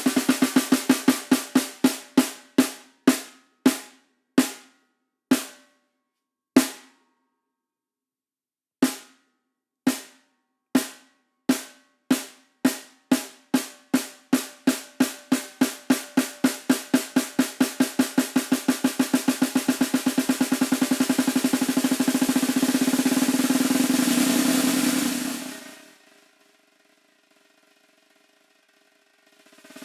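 Solo snare drum: single strokes spaced ever wider apart over the first several seconds, then after a short pause strokes that speed up into a roll growing louder, which stops abruptly about 25 seconds in. The drum rings faintly afterwards, and a new roll starts right at the end.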